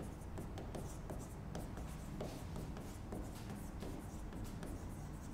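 Writing by hand on a white board: a run of short, light scratching strokes of the pen as a heading is written, over a steady low room hum.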